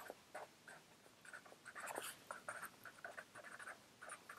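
Pen writing on paper: an irregular run of faint, short scratching strokes.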